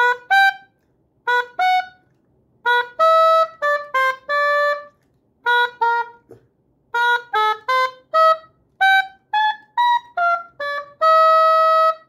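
Oboe playing a slow melody of separate, mostly short tongued notes with small gaps between them, ending on a note held for about a second.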